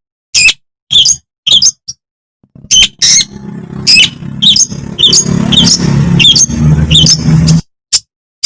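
Long-tailed shrike (Madura cendet) giving a rapid string of short, sharp calls, about two a second, each a quick falling note. From about three seconds in, a low hum sits under the calls, then stops abruptly near the end.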